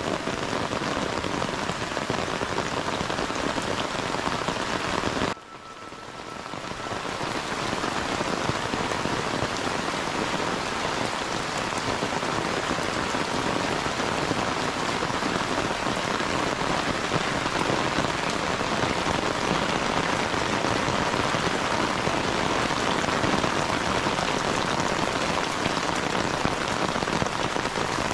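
Heavy rain falling steadily on tiled roofs and the ground. About five seconds in, the sound drops away sharply and swells back over the next two seconds.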